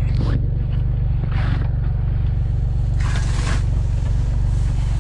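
Rustling and scraping of a heavy winter jacket as a person shifts about and sits down, in a few short bursts over a steady low drone.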